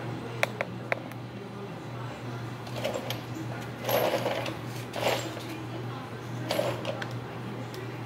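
Two sharp clicks, then several short clatters and rattles of small hard parts and tools being handled, over a steady low hum.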